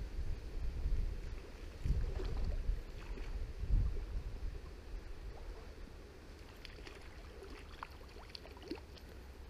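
Wind gusting on the microphone at a riverside, a low rumble that eases after about four seconds, with a few faint high chirps near the end.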